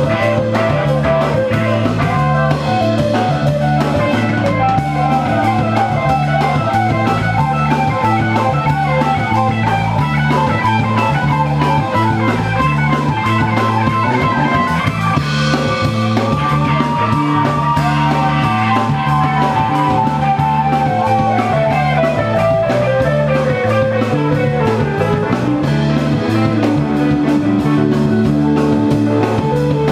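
Live rock band jamming instrumentally: electric guitars over bass guitar and a drum kit, with no vocals. A melody line bends up and down in pitch around the middle.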